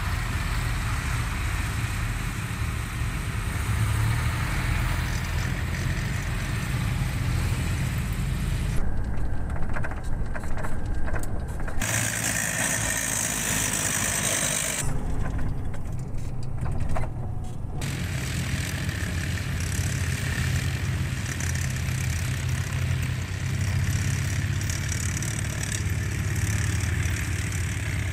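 Engines of a column of military trucks and armoured vehicles running as they drive along dirt roads, a steady low rumble. For a few seconds near the middle a high whine rises over it.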